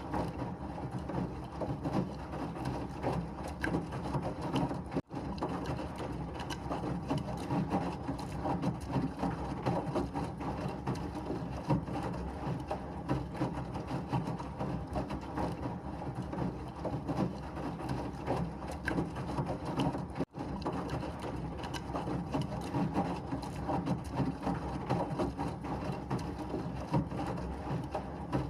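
Washing machine running, a continuous mechanical rumble with a rough, uneven texture, played as white noise. It cuts out for an instant twice, about five seconds in and again about twenty seconds in.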